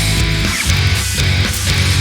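Background heavy rock music with distorted electric guitar and a steady beat.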